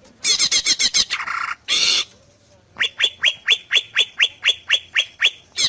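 Cucak ijo (greater green leafbird) singing: a quick burst of high, rapidly repeated notes and a short harsh note, then a run of about a dozen sharp falling whistles, about five a second.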